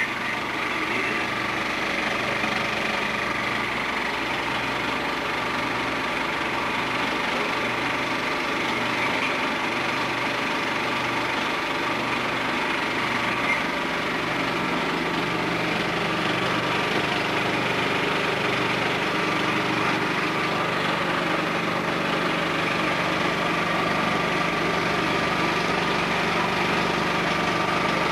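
Cinemeccanica 35/70mm film projector running steadily. A low pulsing hum in the first half settles into a steady hum about halfway through.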